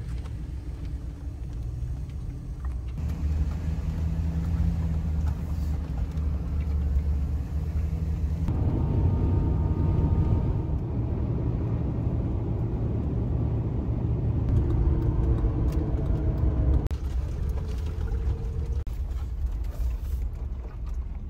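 Road and engine noise inside the cabin of a moving Ford van: a steady low rumble that shifts in tone a few times.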